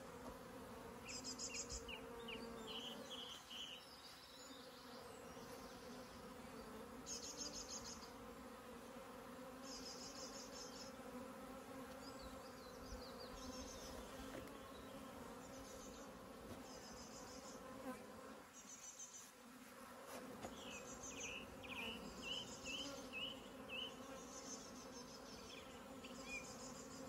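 Low, steady buzzing hum of a small honeybee swarm, a mix of Buckfast and black bees, crowded on the open top bars of a hive box. Brief high chirps come and go every few seconds.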